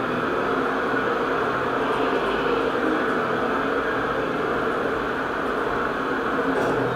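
KONE roped-hydraulic elevator travelling between floors, its hydraulic drive giving a steady hum with a noisy hiss.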